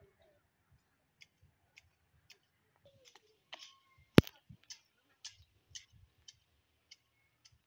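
Footsteps on stone paving at a walking pace, about two steps a second, with one loud sharp click about four seconds in.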